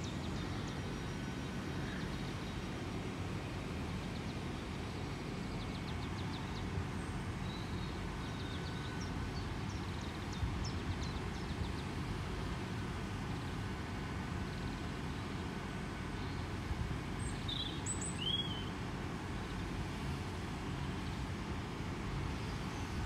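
Hitachi Class 802 bi-mode train standing at the platform with its underfloor diesel engines running: a steady low hum. A bird chirps a few times about three-quarters of the way through.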